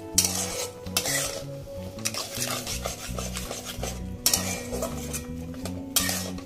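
Spatula stirring and scraping thick, sticky tomato chutney around a pan, with a few louder scrapes, over faint background music.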